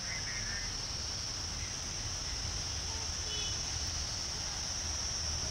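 Insects droning in a steady high-pitched chorus, unbroken throughout, over a low rumble.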